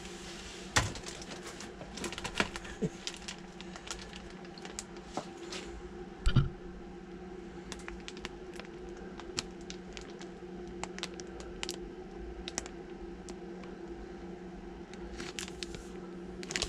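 Clear plastic bags of decal sheets being handled, crinkling and rustling with scattered clicks and taps, and a louder thump about six seconds in. A steady low hum runs underneath.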